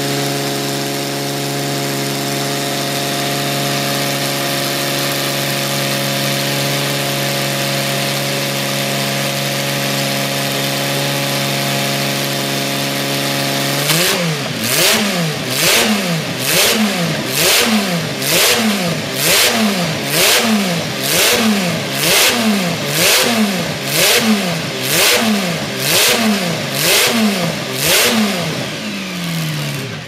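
1939 Auto Union Type D's supercharged V12 engine running steadily on the stand, then blipped again and again from about halfway through, its pitch rising and falling about once a second. The sound falls away sharply at the very end.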